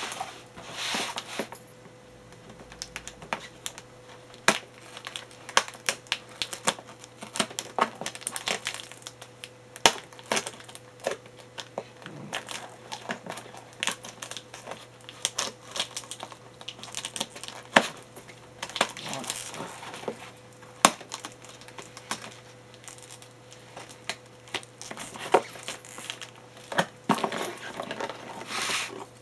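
Scissors snipping and cutting through packing tape and cardboard on a box, with the tape crinkling and tearing: irregular sharp snips and crackles throughout, over a faint steady hum.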